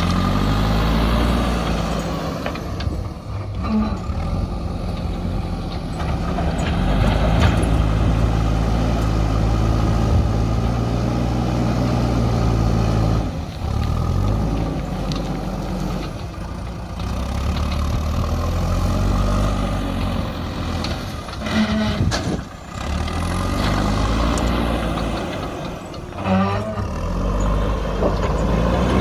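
JCB backhoe loader's diesel engine running, its pitch rising and falling over and over as it revs up and settles back.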